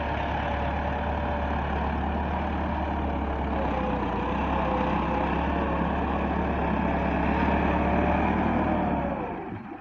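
Massey Ferguson 385 tractor's four-cylinder diesel engine running steadily under load as its front blade pushes soil; the sound drops away about nine seconds in.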